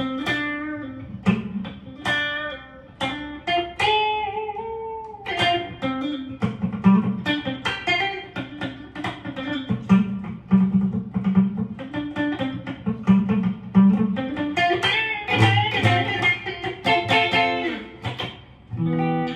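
Mattrixx Telecaster-style electric guitar with twin humbucker pickups played through an amplifier with a clean tone and a little reverb: single-note lines and short chords, some notes bent upward.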